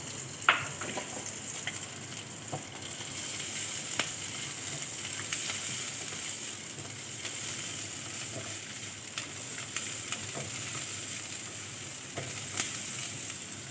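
Diced green bell pepper sizzling in a little oil in a metal kadai, while a spatula stirs it, with occasional sharp clicks and scrapes of the spatula against the pan.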